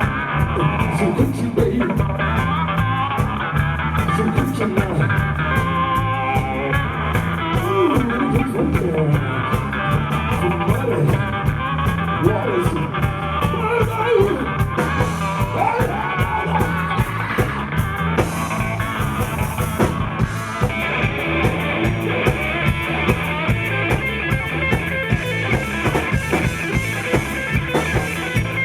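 Live rock-blues band playing: electric guitar over bass and a steady drum beat, with the guitar bending notes in the middle of the passage.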